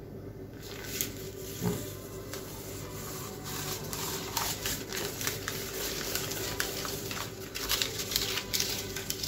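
Paper crinkling and crackling as a magician's paper mouth coil is drawn out of the mouth hand over hand: a run of small crackles that grows busier after about three seconds.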